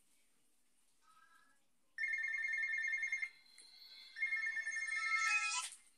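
Mobile phone ringtone: a faint short tone about a second in, then two loud rings with a pause between them, the second cutting off suddenly near the end.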